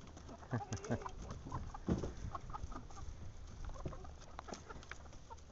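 A small flock of chickens clucking in short, scattered calls as they move about their pen after being let out of the coop.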